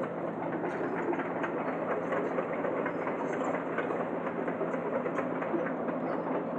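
Jonyang JY623E crawler excavator travelling on its steel tracks: a continuous, rapid clatter of track links and rollers over the steady running of its diesel engine.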